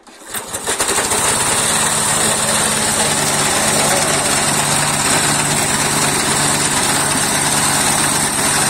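Small petrol engine driving a pine-cone processing machine starting up, coming up to speed within about a second and then running steadily, with a steady high hiss over the engine note.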